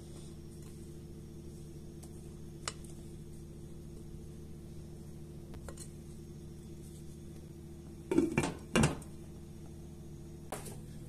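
A glass pan lid clattering onto the rim of a nonstick frying pan in two short bursts of clinking near the end. A single click comes earlier, and a steady low hum runs underneath.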